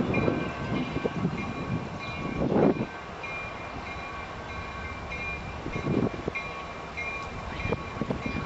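Freight train rolling past close by, first its Grand Trunk diesel locomotive and then the freight cars. There is a steady rumble of wheels on rail, with a few heavier knocks and a thin, high, on-and-off ringing from the wheels.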